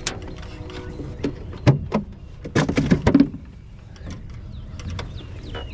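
A string of knocks and clunks against the aluminium hull and fittings of a small jon boat while a freshly caught crappie is handled, loudest in a cluster about two and a half to three seconds in.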